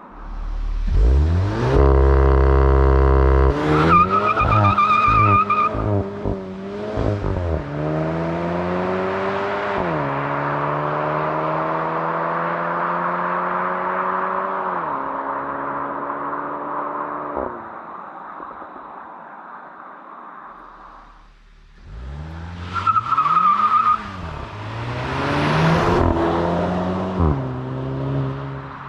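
2023 Volkswagen Golf GTI's 2.0-litre turbo four-cylinder revved up and held steady for a moment, then launched hard with a short tyre squeal as the front wheels spin. It pulls through several quick dual-clutch upshifts, each a rise in pitch ended by a sudden drop, then eases off. A second hard launch follows near the end, again with tyre squeal and a climb in revs to an upshift.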